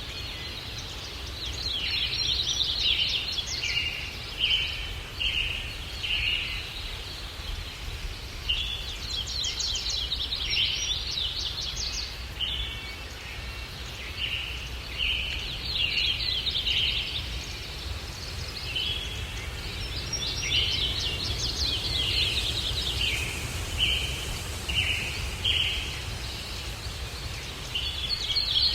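A songbird singing the same song phrase again and again, roughly every six to seven seconds: a quick trill followed by a string of short chirps. A steady low rumble of wind runs beneath it.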